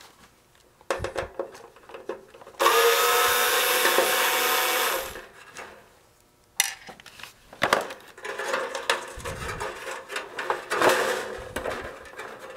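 A small handheld power tool motor runs steadily for about two and a half seconds, its pitch rising slightly as it spins up. Then come irregular clicks and rattles of tools and small metal parts being handled.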